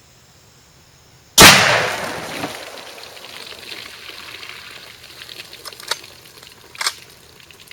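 A single shot from a .357 Magnum Marlin lever-action carbine, firing a mild 125-grain handload, about a second and a half in. The bullet bursts water jugs, and splashing and spattering water fade away after the shot, with two sharp clicks near the end.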